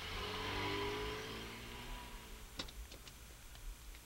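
Car engine accelerating away, its pitch rising gently as it fades out. A few sharp clicks follow near the end.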